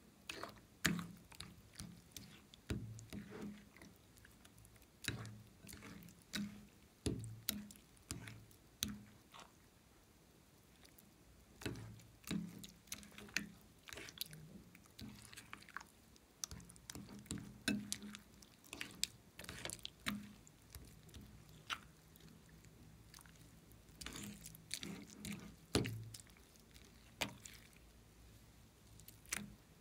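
Thick slime being stirred and folded with a spatula in a glass bowl: irregular sticky clicks and pops, a few a second, with low soft thuds as the slime folds over.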